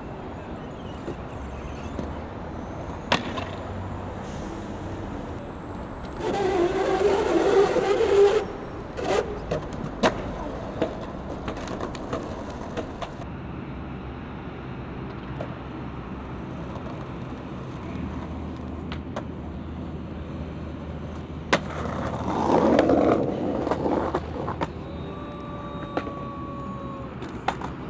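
Skateboard on pavement: wheels rolling, with a few sharp clacks of the board and two louder stretches of rolling noise, one about six seconds in and one a few seconds before the end.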